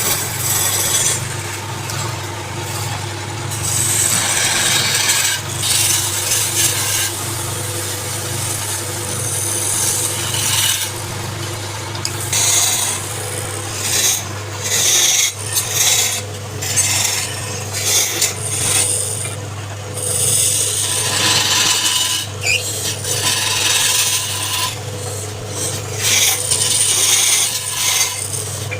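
Wood lathe motor running with a steady hum while a turning tool cuts the spinning wood in repeated scraping passes that start and stop every second or two.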